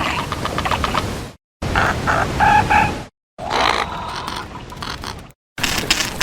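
Designed pterosaur call sound effects: a run of separate short clips of pitched, bird-like calls, cut apart by three brief dead silences. One clip holds a few short repeated calls, and another a held tone.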